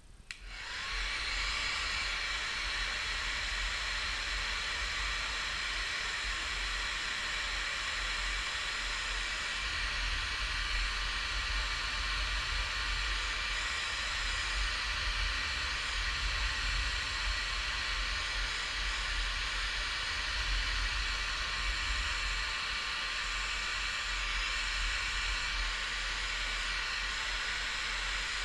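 Hand-held hair dryer switched on just after the start and running steadily, a rushing hiss of air with a steady motor whine, blowing hot air to shrink a battery's plastic wrap.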